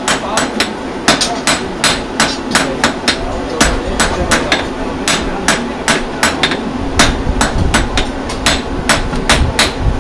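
Blacksmith's hand hammer striking a hot iron bar on a steel anvil: a steady run of sharp metallic blows, about three a second, with a few short pauses.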